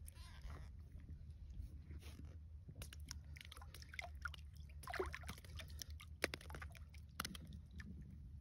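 Faint sloshing of water and crunching of slush and ice in an ice-fishing hole as a bare hand works in it, with scattered small clicks and taps over a low steady rumble.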